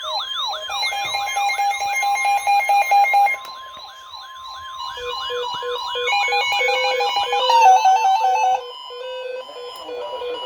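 Weather alert receivers going off together for a severe thunderstorm warning. A fast, repeating rising-and-falling siren alarm runs until about two seconds before the end, overlapped by beeping at several pitches. A steady high tone joins about a second in, typical of the NOAA Weather Radio 1050 Hz warning alarm tone.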